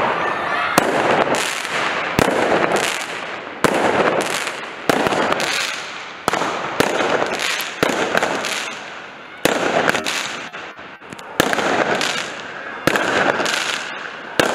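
Fireworks going off in quick succession: sharp bangs about one or two a second, each trailing off in a fading hiss and crackle.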